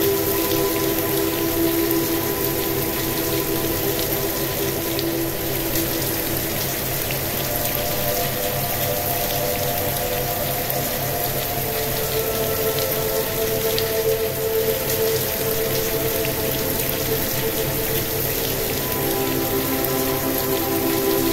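Steady rain with fine pattering drops, over soft sustained ambient synth chords that shift slowly to new notes a few times.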